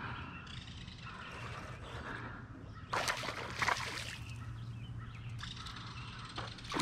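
Creek water sloshing and splashing, with a loud burst of splashing about three seconds in and another near the end, over a steady low rumble.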